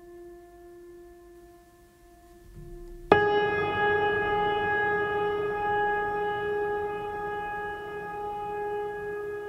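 Slow background music of long held notes: a soft held note, then about three seconds in a louder note starts sharply and holds, fading slowly.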